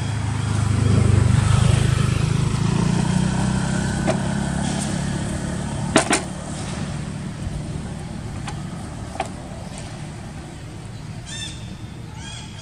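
Motorcycle engine running nearby, a low hum that swells about a second in and then slowly fades. A couple of sharp clicks come about six seconds in, and a brief high squeal near the end.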